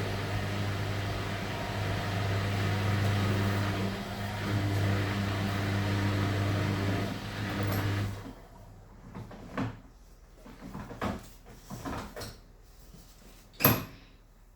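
Washing machine running with a steady low hum and whirring noise that stops about eight seconds in, followed by a few scattered knocks and one louder knock near the end.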